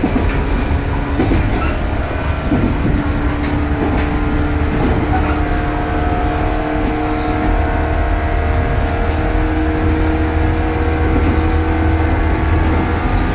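Electric train running at speed, heard from inside the carriage: a steady rumble and wheel noise with a level multi-tone motor hum.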